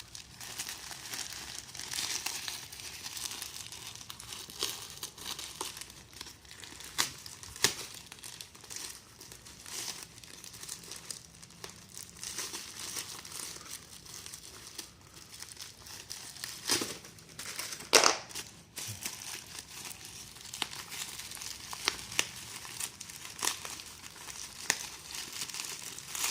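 A courier parcel's packaging being torn open and crinkled by hand: continuous crackling with many sharp rips, the loudest pair about two-thirds of the way through.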